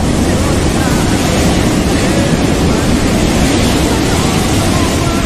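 Loud, steady rushing noise like surf, with faint voices mixed low beneath it: the masking layer of a subliminal audio, with its affirmations buried under the noise.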